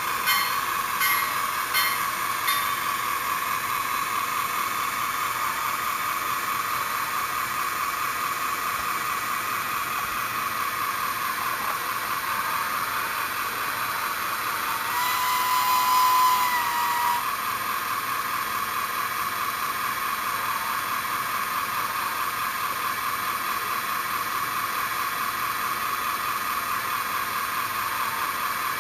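Sound decoder of a Bachmann HO geared steam logging locomotive (Shay or Climax) playing rapid, steady steam chuffing through the model's small speaker as it runs. A whistle blast of about two seconds sounds about halfway through.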